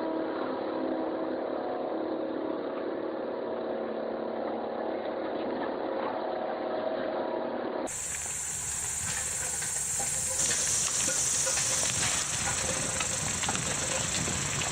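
A heavy machine's engine running steadily with a droning hum for about eight seconds. Then an abrupt change to a loud, hissing spray-like noise with scattered small clicks.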